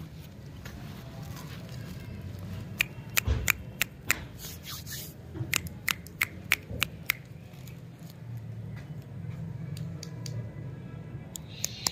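A quick series of about a dozen sharp clicks and taps from hands at the wrapped lollipops, bunched between about three and seven seconds in, over a low steady hum.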